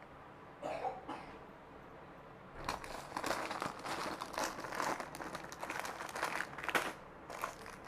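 Packaging crinkling and rustling as it is handled, starting about two and a half seconds in and running for about four seconds as a dense, crackly rustle.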